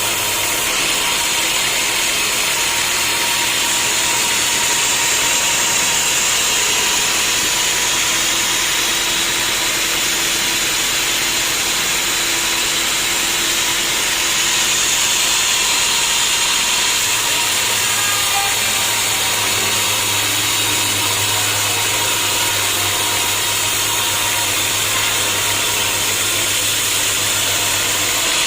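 Sawmill saw running steadily through wood, a continuous high-pitched cutting noise over the low hum of its motor. The hum grows louder about two-thirds of the way through.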